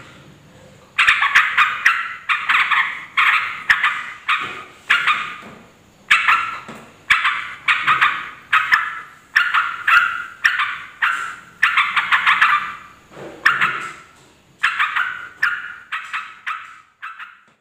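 Yellow-vented bulbul (trucuk) calling noisily: bursts of fast, chattering notes repeat about once or twice a second, starting about a second in, with a brief lull near the end.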